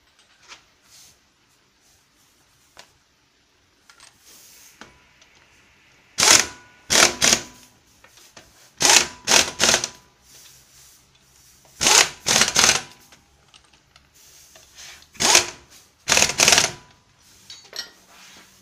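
Impact wrench tightening the wheel nuts of a refitted front wheel, in about nine short bursts of a fraction of a second each, grouped in twos and threes.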